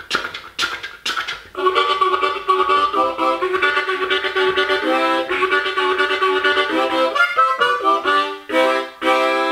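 Harmonica playing a choo-choo train chugging along. It opens with a few short breathy puffs, then moves to pulsing chords in a steady rhythm, with a brief pause about seven seconds in.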